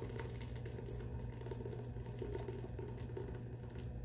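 Hot soup pouring from a stainless steel pot into a fine-mesh sieve over another pot, a steady splashing pour, over a low steady hum.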